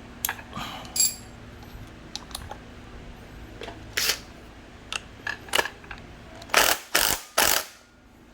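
Impact wrench driving a bolt home on a scooter front fork in three short bursts, about two-thirds of the way in, after the bolt was hand-threaded snug. Before that come scattered sharp clicks of metal tools being handled.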